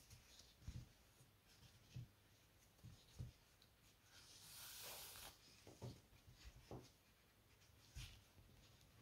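Near silence with faint handling sounds of a crochet hook and thick cotton cord: soft knocks about once a second and a brief soft hiss about halfway through as the cord is drawn through the stitches.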